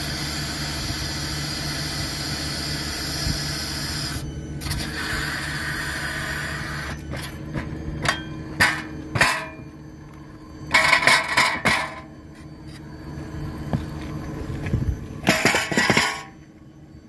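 Hydraulic rail weld trimmer working over a freshly poured thermite weld: steady machine noise with a low hum for about the first seven seconds, then it stops. After that come sharp metallic clanks and scraping noises as the steel trimmer is handled and lifted off the rail.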